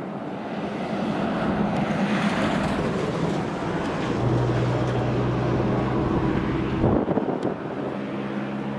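A road vehicle passing the crossing, with engine and tyre noise swelling and fading, and wind on the microphone. A steady low engine hum stops abruptly about seven seconds in.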